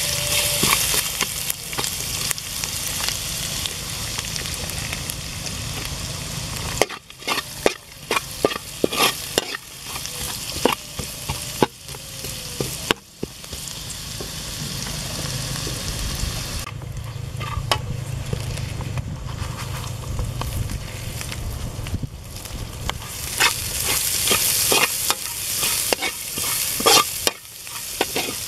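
Diced aromatics sizzling in hot oil in a metal wok, the sizzle jumping up at the start, while a metal spatula scrapes and clinks against the pan in repeated bursts of stirring.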